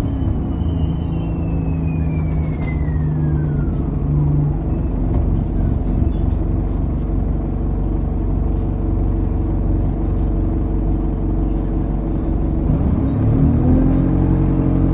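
ADL Enviro200 bus diesel engine with its turbocharger whistle: as the throttle comes off, the whistle falls away over the first few seconds and the engine settles to a steady low drone. About two seconds before the end it pulls away again, the engine note and the turbo whistle rising together.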